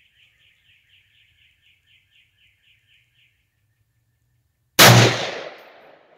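A single shot from an M1A semi-automatic rifle firing 7.62x51mm 147-grain full metal jacket, about five seconds in, its report dying away over about a second. Before it, a faint bird trill of short notes repeats about four times a second.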